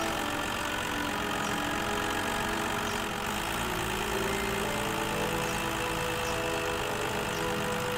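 Cartoon tow truck's engine sound effect, running steadily as the truck drives along towing a pickup.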